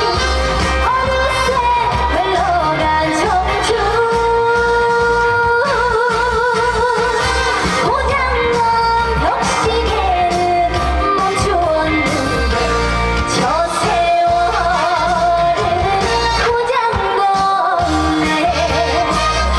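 A woman singing a trot song live over an amplified backing track, holding long notes with vibrato.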